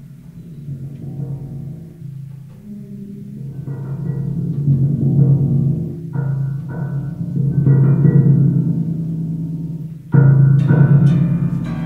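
Instrumental music with deep sustained tones that swell and fade, and a sudden louder entry about ten seconds in.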